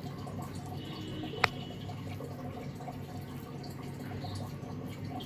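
A single sharp click with a brief high ring about one and a half seconds in, over a steady low background hum.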